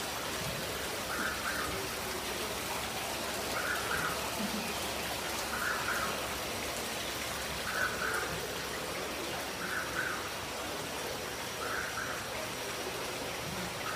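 Steady splashing hiss of running water in an aquarium tank. A short mid-pitched sound repeats about every two seconds.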